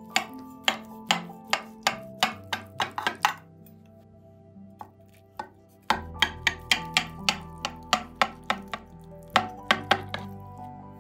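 Kitchen knife cutting through a baked zucchini and cheese casserole, its blade tapping sharply against the bottom of a glass baking dish in quick runs of clicks, with a pause of a couple of seconds around the middle. Soft background music underneath.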